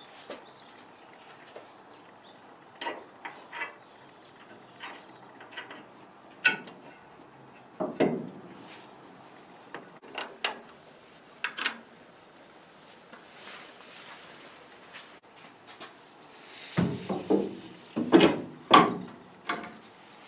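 Scattered clicks, knocks and clanks of metal parts and hand tools being handled while a battery and its cables are fitted under the floor of a Ford Model A, with a run of louder knocks near the end.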